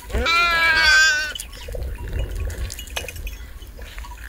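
A sheep bleating once: a single long, wavering call of just over a second at the start, then only faint background noise.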